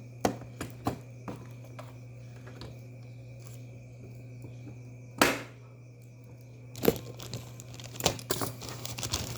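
Packaging being handled: irregular crinkling and rustling with sharp clicks, one longer rustle about five seconds in and a busier cluster near the end, over a steady low hum.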